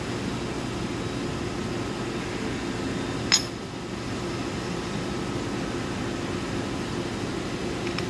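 One sharp metallic clink of steel vise parts striking each other about three seconds in, ringing briefly, over a steady low shop hum.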